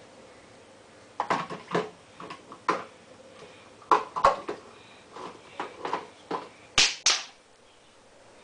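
Small plastic toy pots knocking and clattering against a plastic play kitchen's stovetop and against each other: a run of irregular light knocks, with two sharper knocks near the end.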